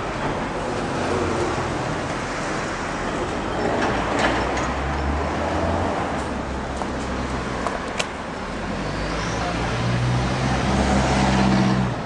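Road traffic: cars passing with engine hum and tyre noise, swelling about four seconds in and again near the end, with a sharp click about eight seconds in.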